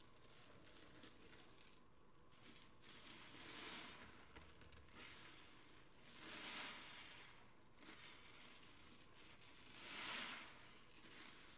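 Soap-soaked sponges squeezed and lifted by gloved hands in a plastic tub of foamy water: soft wet squelching and fizzing foam, swelling louder three times, a few seconds apart.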